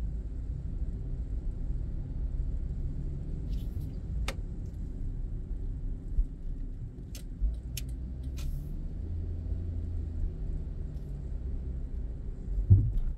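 Car driving, a steady low rumble of engine and road noise, with a few sharp clicks in the middle and a short thump near the end.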